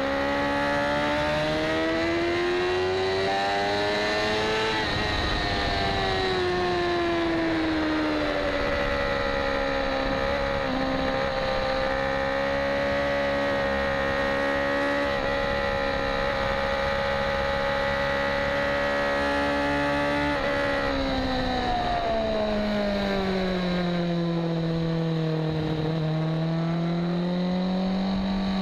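BMW HP4 superbike's inline-four engine at high revs, heard from on board. The engine note climbs for the first few seconds, eases back and then holds steady for a long stretch. It drops about two-thirds of the way through as the bike slows and picks up a little again near the end, over a constant rush of noise.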